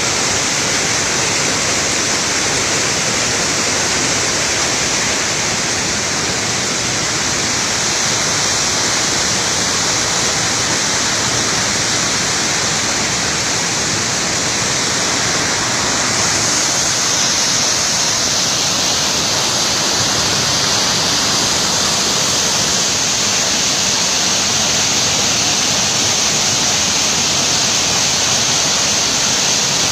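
Waterfall rushing: a loud, steady wash of falling water that grows a little brighter and hissier about halfway through.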